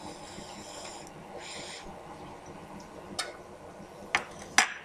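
A steady faint hiss with three short, sharp clicks in the second half, the last two close together and louder, like glass or dishware clinking.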